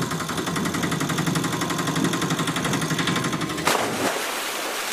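Toy auto rickshaw running with a fast, even rattle over a low hum, then a sudden splash a little over three and a half seconds in as it drops into river water, followed by a short wash of water noise.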